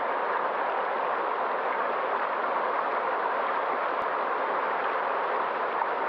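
Steady rushing of a flowing stream over rocks, an even wash of water noise with no change in level.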